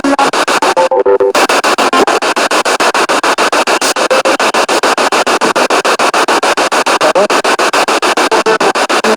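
Spirit box radio sweeping through stations: loud static chopped into rapid pulses, about eight or nine a second, with brief scraps of broadcast tone and music caught between them.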